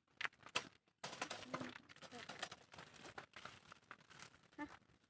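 Crinkling and clicking handling noises, a scatter of short sharp clicks and rustles, with a brief bit of voice.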